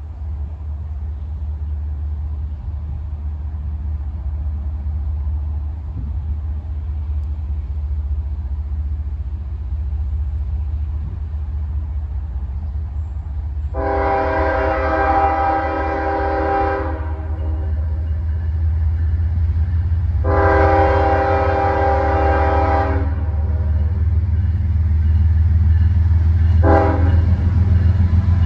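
Diesel freight locomotive approaching, its engine a low rumble growing steadily louder. Its multi-chime air horn sounds two long blasts and then a short one near the end: the grade-crossing warning pattern.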